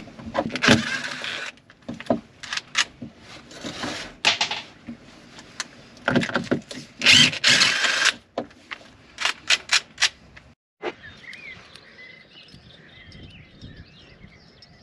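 Short, irregular bursts of a power driver backing out bolts, mixed with sharp metallic clicks and clanks. Well over halfway through it cuts off abruptly, and birds chirp faintly over outdoor background noise.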